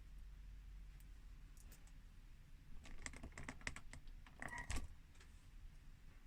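Light clicks and knocks of hands handling a VHS video recorder's plastic and metal parts while starting to remove a circuit board, in a quick run about three to five seconds in, one with a short scraping squeak.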